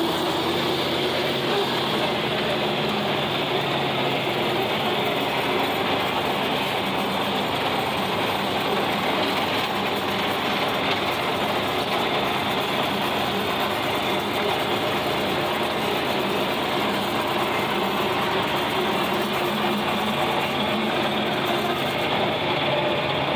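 John Deere 4020 tractor engine running steadily under load while it pulls a 1408 rotary cutter (brush hog) through grass, the engine and cutter blending into one constant drone with no letup.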